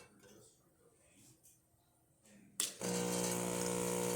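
Breville Oracle Touch espresso machine starting its hot-water function: after a quiet couple of seconds a click, then the pump starts about two and a half seconds in with a steady buzzing hum and hiss as hot water is dispensed.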